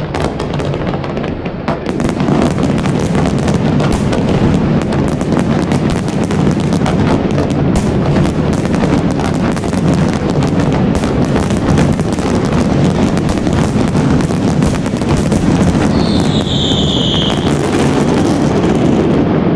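Dense fireworks barrage: a continuous stream of crackling pops and bangs over a low rumble, with a falling whistle about sixteen seconds in.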